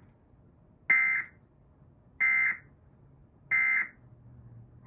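Three short bursts of Emergency Alert System digital data tones, each under half a second and about 1.3 seconds apart: the SAME end-of-message signal that closes an EAS alert.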